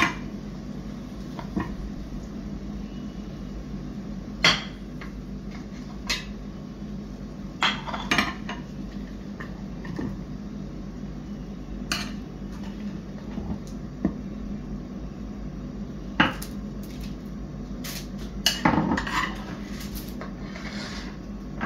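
Metal serving spoon clinking and scraping against a nonstick frying pan and ceramic plates, about a dozen separate sharp clinks at uneven intervals with a brief flurry near the end. A steady low hum runs underneath.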